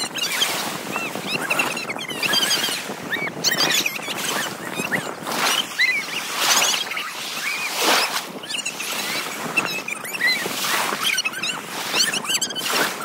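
Sea water splashing and washing in repeated surges around swimmers in shallow, choppy surf, with short high-pitched cries over it.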